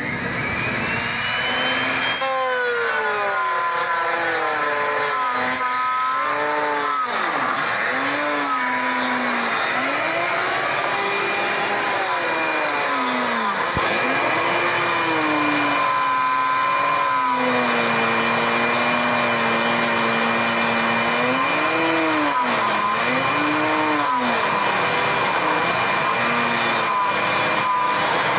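A portable router mounted in a router table spins up with a rising whine over the first couple of seconds, then cuts a 3/4-inch groove down a 2x6 board. Its motor pitch sags and recovers again and again as the wood is fed through the bit and loads it. A shop vac pulling the dust off the table runs steadily underneath.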